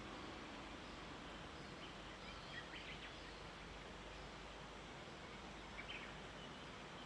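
Faint morning outdoor ambience: a steady low background hiss and rumble, with a few short bird chirps about three seconds in and again near six seconds.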